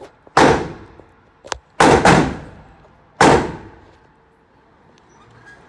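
Gunfire at a shooting range: four loud shots with echoing tails, two of them close together about two seconds in, and a smaller sharp crack just before that pair.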